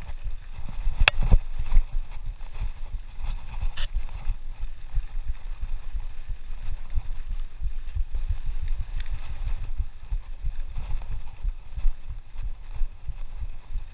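Mountain bike rolling down a bumpy dirt trail: a constant, uneven low thudding and rumble from the tyres and frame over the ground, with two sharp clicks, about a second in and near four seconds.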